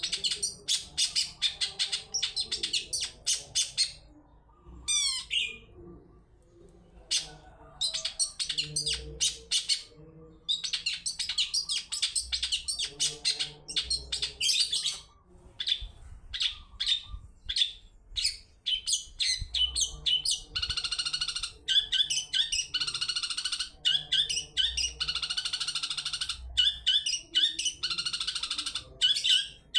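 Long-tailed shrike (cendet) giving rapid runs of sharp, high chattering calls in bursts with short pauses, with one falling call about five seconds in and a long unbroken stretch of dense chatter in the last third. This is a 'toet toet' lure call, meant to prompt other cendet to answer.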